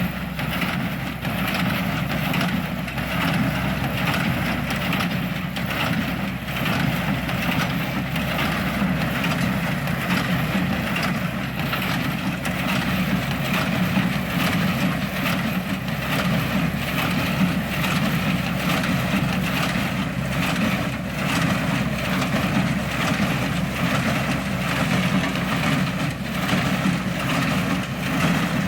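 Tractor engine running steadily with a New Holland 66 small square baler running behind it, its freshly repaired feed auger back in service.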